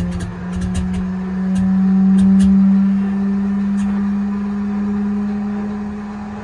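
North American Harvard's Pratt & Whitney R-1340 Wasp nine-cylinder radial engine running at idle on the ground. It has a steady drone with a throb underneath and a few sharp pops in the first four seconds. The engine speeds up slightly about a second in, then settles.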